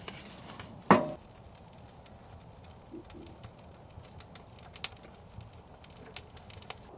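Wood fire crackling inside a wood-burning tent stove, with sharp pops and ticks scattered irregularly. About a second in there is one loud knock with a short metallic ring.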